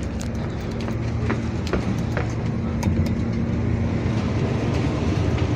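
Interior running noise of a CrossCountry Voyager diesel multiple unit on the move: a steady drone with a low hum from the train, and scattered light clicks and knocks.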